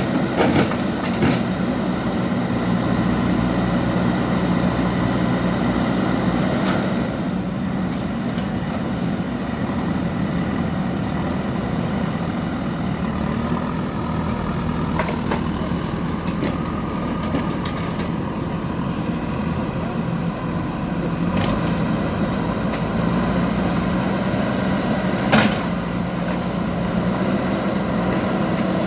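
Diesel engine of a JCB backhoe loader running steadily under work, with a few sharp knocks now and then.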